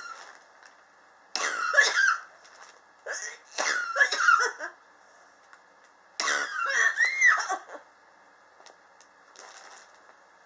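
A person coughing in three fits, each about a second or so long, starting about one and a half, three and six seconds in: a long-standing chronic cough.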